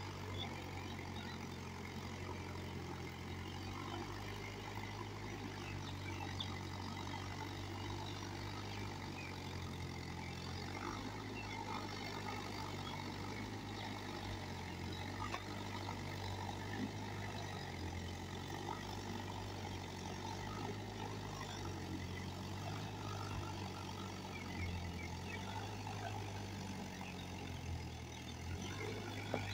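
Tractor engine running steadily while tilling a flooded paddy field, heard from across the field as a low hum that shifts slightly in pitch.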